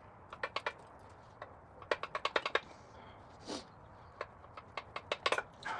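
Light metallic clicks and clinks from tools and engine parts while a bearing cap is worked off the bottom end of a Ford 4.6 3-valve V8. There is a quick run of rattling clicks about two seconds in, a short scrape or swish in the middle, and more scattered clicks near the end.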